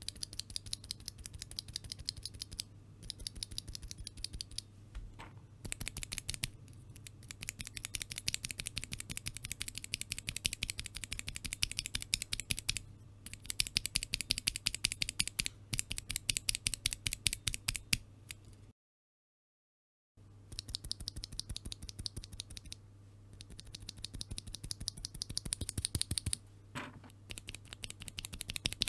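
Outemu Ice Purple tactile mechanical keyboard switches, stock and lubed, held in the hand and pressed and released rapidly: fast runs of sharp clacks, several a second, in bursts with short pauses, over a faint steady low hum. About two-thirds of the way through the sound cuts out completely for about a second and a half.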